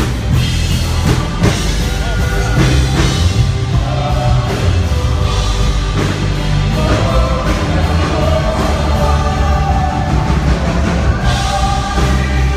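Live band playing a song with drum kit, bass and singing voices.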